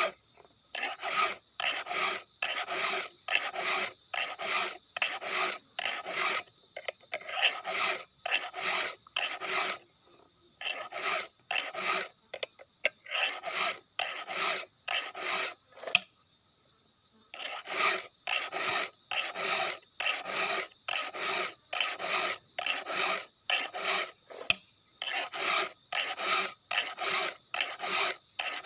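A hand file rasping across chainsaw chain cutters in even strokes, about two a second, sharpening the chain. The filing stops briefly about ten seconds in and again for about two seconds around the middle.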